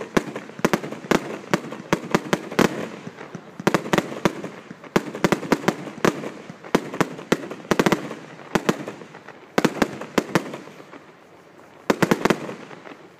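Aerial fireworks shells bursting in quick, irregular volleys of sharp bangs and crackle, with a short lull near the end before a last cluster of bangs.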